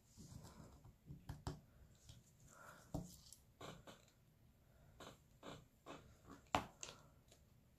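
Faint, scattered clicks and taps of a diamond-painting drill pen picking up resin drills and pressing them onto the adhesive canvas, with one sharper tap about two-thirds of the way through.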